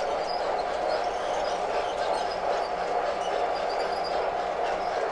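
MTH O scale model trains running on the layout: a steady hum of the motors and wheels rolling on the track.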